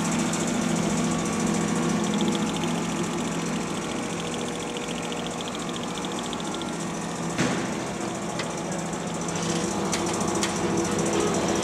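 DoAll 36-inch vertical band saw, with its 2 HP three-phase motor, running steadily with an even hum. A few short sharp clicks come in the second half, the loudest about seven and a half seconds in.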